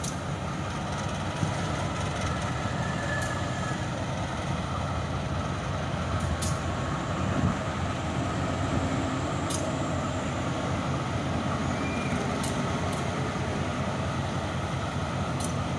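Diesel locomotive hauling a train of tank wagons, its engine running steadily as it creeps along the track, with a few sharp clicks scattered through.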